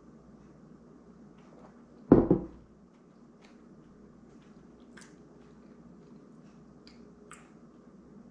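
Eating at a table: a fork clicking and scraping against a plate while cutting into a dense cream-filled coffee cake, with faint chewing. A single short loud thud about two seconds in.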